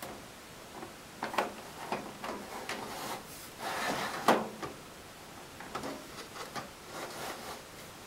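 DVD writer sliding into a computer case's metal drive bay: irregular scraping and clicking of metal against metal as it is pushed in, with the loudest knock about four seconds in.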